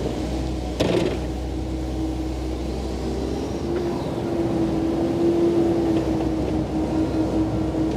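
Komatsu PC88 excavator's diesel engine running steadily under hydraulic load, its note rising slightly and getting a little louder midway. A single sharp clank about a second in.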